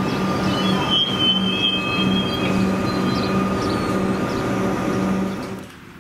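Comeng electric suburban train moving along the platform: a steady rumble with a pulsing motor hum and thin, high wheel squeals. The sound cuts off sharply about five and a half seconds in.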